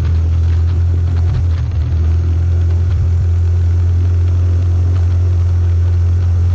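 Off-road vehicle's engine running steadily under load as it climbs a steep, rutted dirt track: a deep, constant drone.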